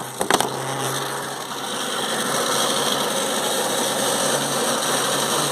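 Electric mixer grinder motor running with a steady whirring noise and hum, after two short clicks at the very start. The repairer suspects its carbon brushes are worn.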